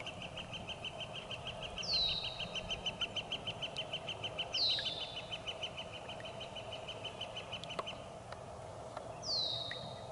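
Spring birdsong: a long, even trill of rapid identical notes that stops about eight seconds in, with a short downward-sliding call heard three times over it.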